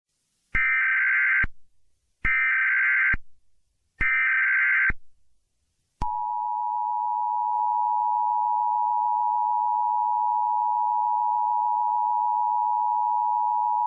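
Emergency Alert System header: three short harsh data bursts about a second and a half apart, then about six seconds in a steady attention tone that holds. It introduces an emergency action termination message.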